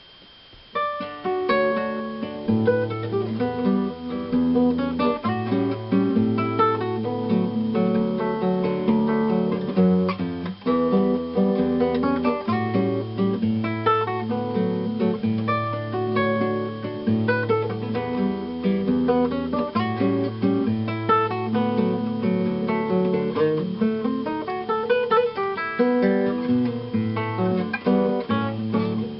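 Acoustic guitar fingerpicking a melody over a moving bass line, starting about a second in.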